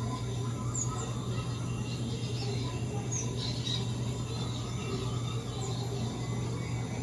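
Steady low hum over a noisy background, with a few short, high bird chirps: one about a second in, one about three seconds in and one near six seconds.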